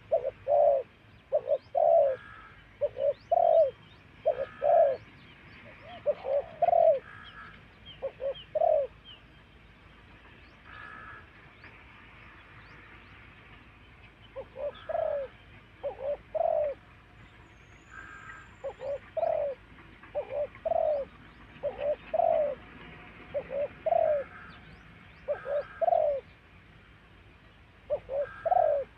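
Spotted dove cooing repeatedly in short phrases of two or three low notes, with a lull of several seconds around the middle. Faint high chirps of small birds are heard behind it.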